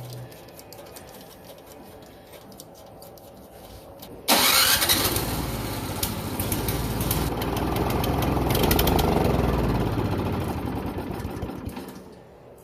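Briggs & Stratton 163cc snowblower engine, one that won't start, being cranked over. It starts suddenly about four seconds in with a quick rising whine, builds for several seconds, then dies away near the end.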